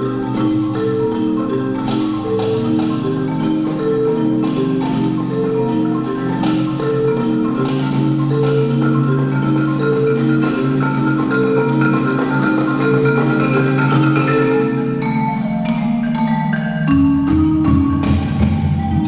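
Marimbas played with mallets by several players, fast repeating interlocking patterns of short wooden notes. Deep bass notes join about seventeen seconds in.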